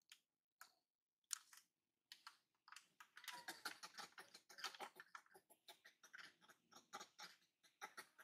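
Faint, irregular clicking and ticking from long-tailed macaques grooming, sparse at first and thickening to several clicks a second about two seconds in.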